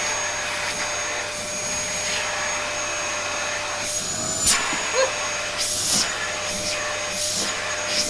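Vacuum cleaner running steadily with a constant whine while its nozzle is worked over a cat's fur. Several short louder rushes of air come from about halfway through.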